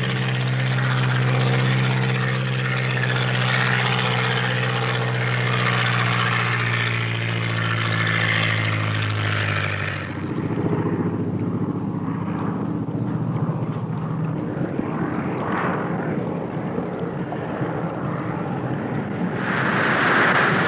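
De Havilland Beaver floatplane's radial engine and propeller running steadily on the landing approach, throttled back about halfway through. Near the end a loud rush of spray as the floats touch down on the water.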